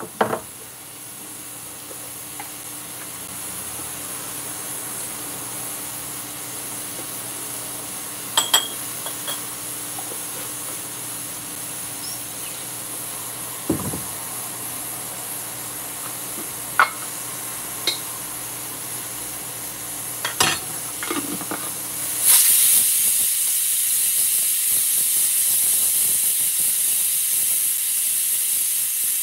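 Aluminium stovetop pressure cooker with a weighted valve, heating on a burner: a low steady hiss with a few small clicks and pops. About three quarters of the way through, steam suddenly starts escaping at the valve in a loud steady high hiss as the cooker reaches pressure.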